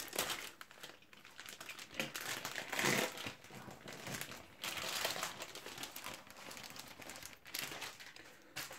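Crinkling and rustling of a plastic trading-card starter-pack bag being slit open with a utility knife and handled, in irregular bursts.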